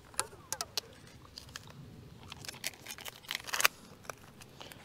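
Packing tape being pulled off the roll and pressed around a stack of soap bars, in a string of short ripping pulls, the longest and loudest about three and a half seconds in.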